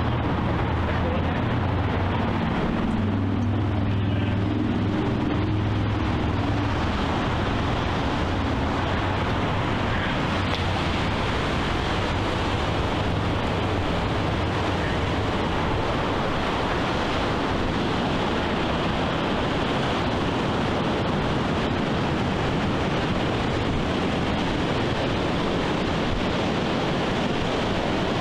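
Steady ocean surf and wind with wind noise on the microphone. A low hum sits underneath for the first ten seconds or so, then fades.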